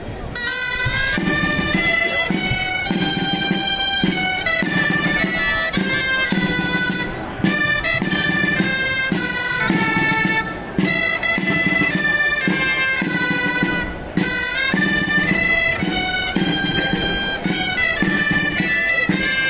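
Reed wind instruments playing a bright folk melody in the traditional Catalan street-procession style, with a lower part pulsing beneath it. The melody starts about half a second in and breaks off briefly twice.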